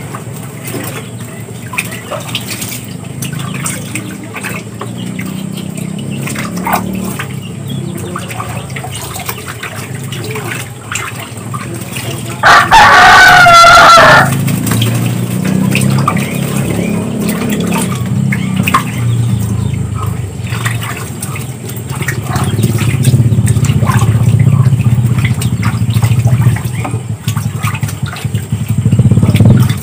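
A rooster crows once, loud, for about a second and a half near the middle. Around it come small splashes of Muscovy ducks bathing in a basin of water, over a low steady hum.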